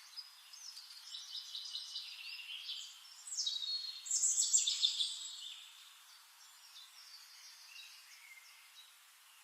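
Songbirds singing in high-pitched phrases, with a couple of louder falling trills about three to five seconds in, then only faint scattered chirps.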